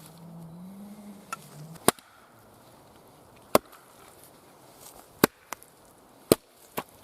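Hudson Bay axe chopping into a round of wood to split it: four sharp strikes roughly a second and a half apart, with a few lighter knocks between them. A faint low hum stops about two seconds in.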